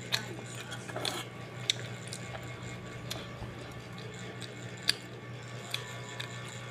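Plastic fork clicking and scraping against the inside of a rice cooker's non-stick pot, a handful of sharp separate clicks with the loudest about five seconds in, along with chewing.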